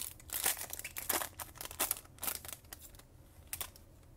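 Foil wrapper of a Topps Chrome trading-card pack crinkling and tearing as it is opened by hand: a quick series of crackles that dies down after about three seconds.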